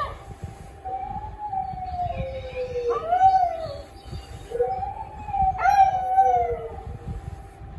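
Small terrier-mix dog howling: several long, wavering howls that slide up and then fall away, with short breaks between them.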